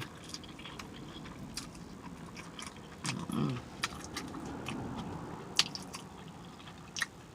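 A person chewing a mouthful of filled crepe close to the microphone: wet smacking and scattered mouth clicks, with a short hum about three seconds in.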